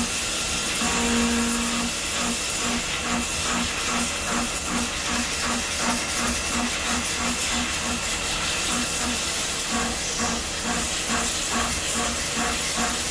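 CNC machine cutting the inside of a stainless steel part: a steady hiss with a low hum that holds for about two seconds, then pulses about two and a half times a second.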